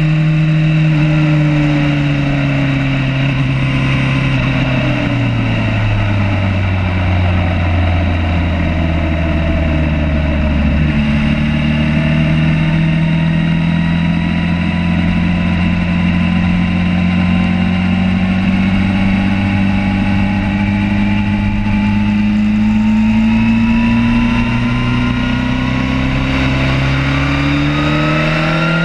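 Racing sport bike's engine heard from a camera mounted on the bike, with wind rush. Over the first few seconds the revs drop as the bike slows. The engine note then climbs slowly as it accelerates.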